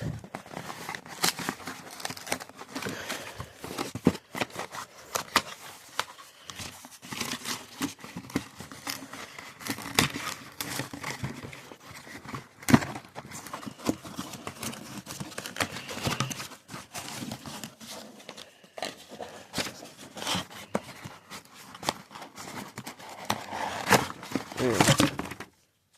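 Packaging of a 3D printing pen kit being handled and opened: plastic and paper rustling and crinkling, with many irregular small clicks and taps.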